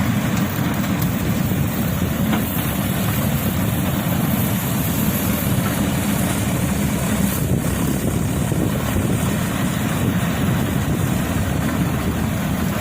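Combine harvester running steadily while cutting wheat, a constant low engine and machinery drone.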